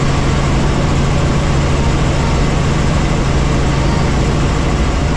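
Helicopter in flight: a loud, steady drone of engine and rotor with a constant low hum.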